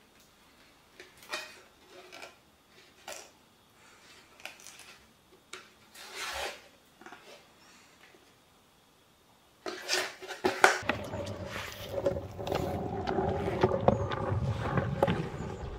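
Light, scattered knocks and rustles of the skateboard and its packaging being handled. About ten seconds in, a louder steady rolling rumble with clatter sets in: the skateboard's wheels rolling.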